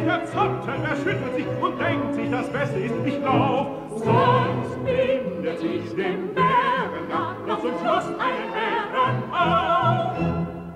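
Operetta singing with orchestral accompaniment: a voice sung with strong vibrato, rising to high held notes over the middle of the passage.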